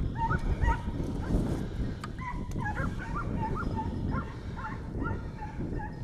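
A hunting dog baying at a wild boar: a steady string of short, high yelping barks, about two a second.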